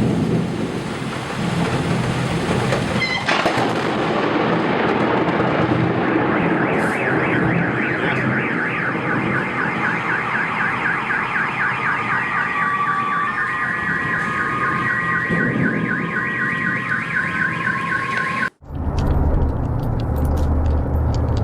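Car alarm sounding in rapid repeating warbles over a steady noisy rush, with a sharp crack about three seconds in. It cuts off suddenly near the end, giving way to a low steady rumble.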